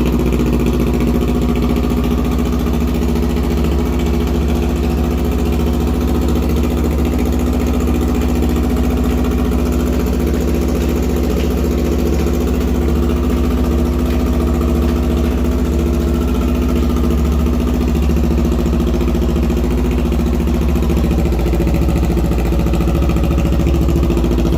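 2019 Kawasaki Ninja 400's parallel-twin engine idling steadily through an aftermarket GP shorty slip-on exhaust that has replaced the stock muffler.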